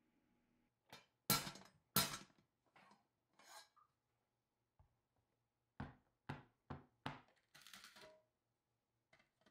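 Metal loaf pan handled on a hard counter: two sharp clanks about a second in, a few lighter knocks, then four quick knocks and a short scrape as the pan is slid off the baked loaf.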